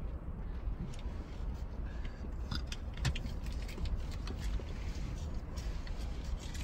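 Outdoor ambience: a steady, uneven low rumble with a few scattered faint clicks.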